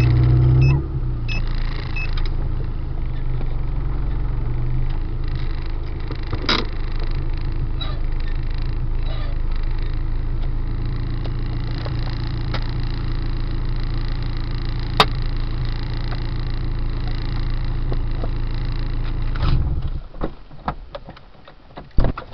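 Car running on the road, heard as a steady low rumble with a couple of single sharp clicks. About twenty seconds in the rumble cuts off, leaving a few clicks and knocks.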